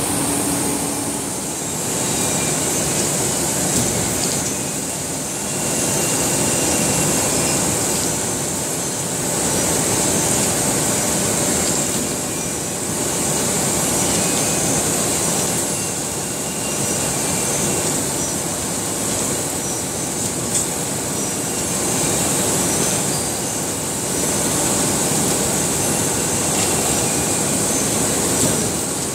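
Veneer rotary clipper line running, with its conveyors and rollers carrying green veneer sheets. A steady, dense mechanical rumble and clatter, with a high hiss that swells and eases every few seconds.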